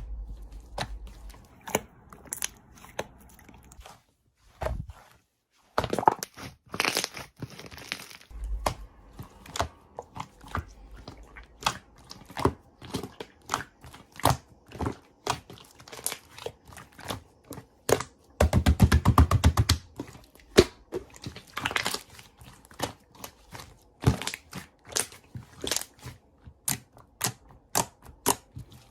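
Slime being squeezed and pressed by hand: a steady run of sticky clicks and small pops, with a brief pause about five seconds in and a loud, fast rattle of pops about nineteen seconds in.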